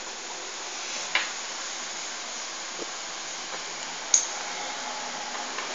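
Steady hiss with a few sharp clicks of small metal parts being handled, the loudest about four seconds in, as a third-hand soldering stand with magnifier and its loose magnifying lens are fiddled with.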